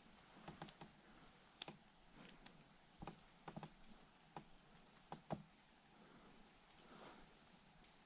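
Near silence broken by scattered faint clicks and light knocks, about eight in the first five and a half seconds, as a fish and its lip-grip tool are handled aboard a kayak.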